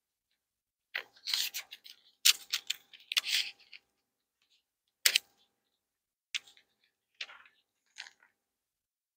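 Thin Bible pages being leafed through, a run of crisp paper rustles, most of them in the first few seconds, then a few single page flips.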